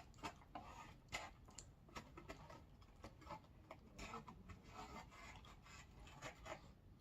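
Near silence with faint, irregular small clicks and rustling from eating a takeout meal.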